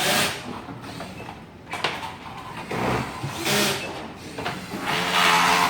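Workbench handling noise: four short rustling, scraping sounds, each about half a second long, from products and labels being handled.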